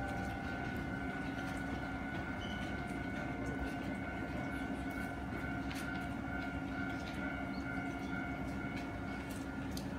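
Hankai Tramway Mo501-type tram standing at the platform, its on-board electrical equipment giving a steady high whine over a low hum, which stops near the end. A few faint clicks sound over it.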